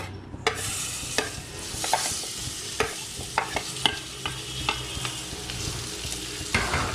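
Sliced big onions sizzling in hot butter and oil in a pan, stirred with a spatula that clicks and scrapes against the pan many times. The sizzling starts suddenly about half a second in.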